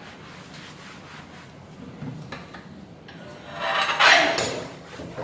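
A scrubbing sponge rubbed back and forth over the base panel of a kitchen counter, with one louder burst of scrubbing about three and a half seconds in that lasts about a second.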